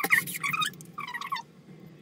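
Cordless DeWalt impact driver driving a screw through a metal coat hook into the wall, in two short trigger bursts, the second about a second in, then it stops.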